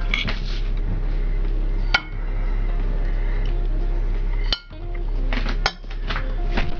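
A metal spoon clinking and scraping against a stainless steel saucepan as cooked rice is served onto a plate, with several sharp clinks over a steady low hum.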